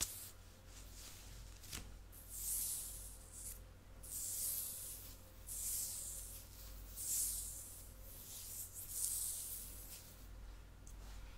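ASMR scratching strokes: a run of soft, hissy scratches that swell and fade about every one and a half seconds, with a sharp click right at the start.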